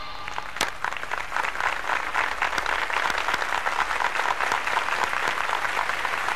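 An audience applauding, a dense patter of many hands clapping that grows louder over the first couple of seconds and then holds steady.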